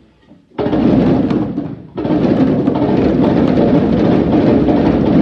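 Many djembes played at once by a large group in a loud, dense roll with no clear beat. It starts about half a second in after a moment of near silence, breaks off briefly about two seconds in, and starts again.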